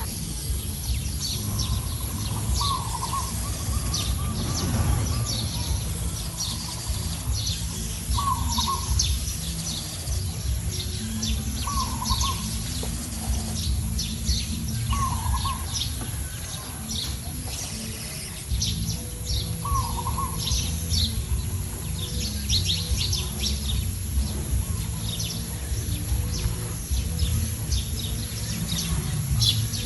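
Outdoor birdsong: many quick high chirps, and one bird giving a short curved call about five times, a few seconds apart. Underneath runs a steady low rumble, the loudest sound.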